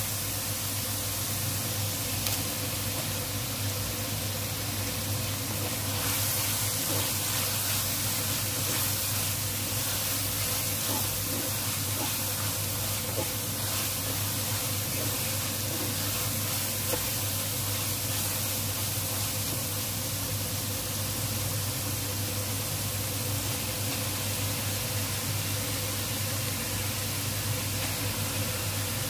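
Spice paste and sliced sausage sizzling in a hot wok as they are stir-fried, with now and then the scrape of a wooden spatula, over a steady low hum.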